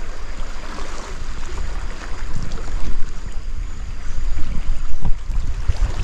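Floodwater of a swollen river rushing past, a continuous wash of noise, with wind rumbling unevenly on the microphone.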